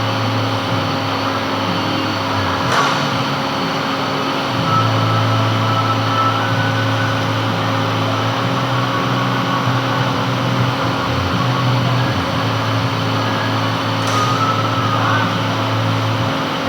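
Metal lathe running steadily while turning a gland, a constant machine hum. A brief click about three seconds in and another near the end.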